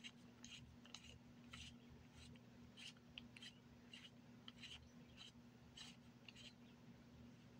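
Faint, irregular clicks and scratches of a small plastic tube being handled and twisted in the fingers as it is worked open.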